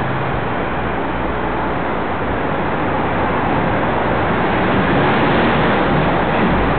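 Steady rushing noise of wind over the microphone of a moving bicycle, mixed with the sound of road traffic.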